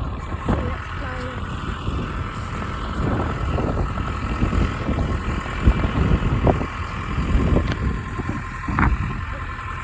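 Tractor engine running steadily with a thin steady whine, and a few sharp knocks along the way.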